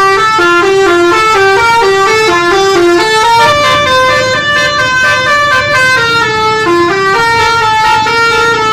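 Bus 'telolet' horn: a set of electric air horns sounding together and playing a quick multi-note tune, loud, with short notes at first and then longer held ones.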